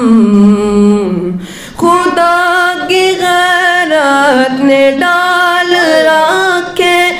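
A boy's solo voice singing a naat: a long held note that ends about a second in, then after a short breath a new melodic phrase with ornamented turns in pitch.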